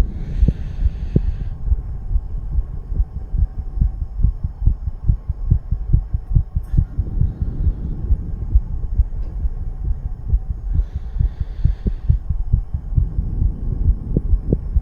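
A man's heartbeat, thumping fast in a steady run under the influence of nicotine and cannabis. Two short bursts of hiss come at the start and about eleven seconds in.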